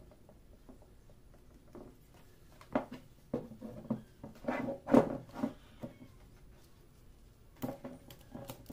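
Segmented wooden staves of rosewood, rengas and maple knocking and clacking against each other and the wooden tabletop as they are handled and fitted together into a ring. The knocks come in irregular clusters, the sharpest about five seconds in.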